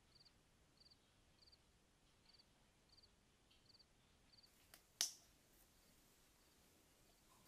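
Crickets chirping faintly, short high trills at an even pace of about three every two seconds. The chirping stops about four and a half seconds in, and soon after comes one sharp click, the loudest sound, followed by faint room tone.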